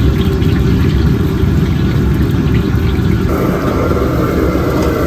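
Gas burner of a commercial wok stove running with a steady low rumble, while battered loach strips fry in hot oil in the wok. The sound turns a little brighter about three seconds in.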